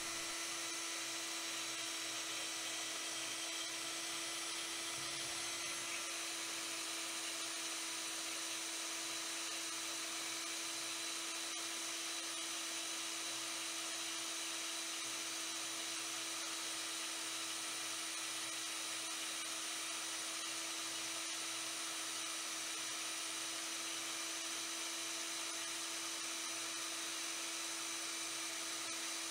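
Vevor 1100 W portable variable-speed metal-cutting bandsaw running at mid speed, its blade cutting through a 10 mm by 25 mm mild steel bar under the saw's own weight. It makes a steady high whine with an unchanging pitch.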